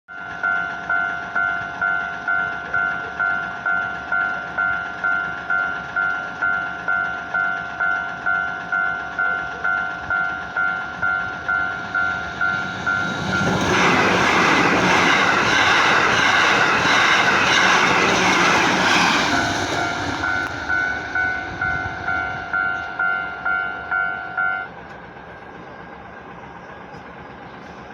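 Japanese railway level-crossing warning bell ringing in a steady two-tone clang, about one and a half strikes a second. About halfway through, a train passes and its rumble covers the bell for some six seconds. The bell stops a few seconds before the end.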